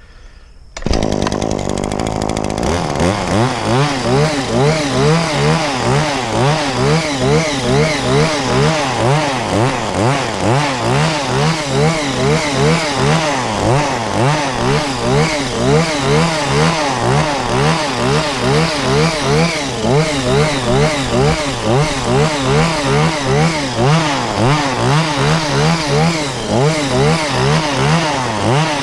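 Shindaiwa multi-tool's two-stroke engine starts about a second in, then runs at high revs driving the hedge-trimmer head through overgrown brush. Its pitch rises and falls in a quick, regular cycle.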